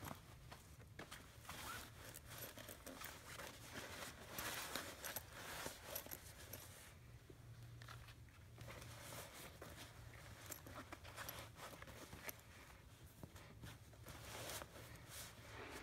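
Faint rustling and shuffling of small doll clothes being stuffed by hand into a canvas zippered pouch, with scattered light clicks from handling the pouch; loudest about four to six seconds in.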